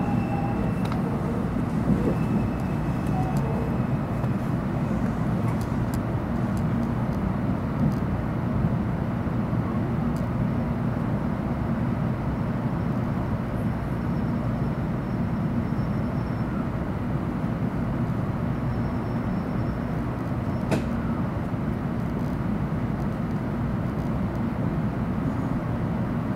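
Steady low hum and rumble inside the passenger car of a JR Central 700 Series Shinkansen, with one sharp click about three-quarters of the way through.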